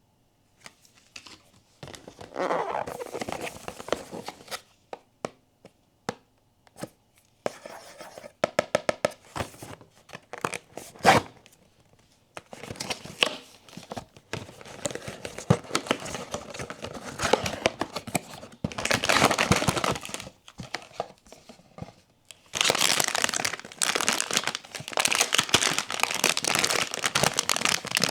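Blind-box packaging being opened by hand: bursts of tearing and crinkling of the wrapping, with scattered sharp clicks in between, and a long stretch of steady crinkling near the end.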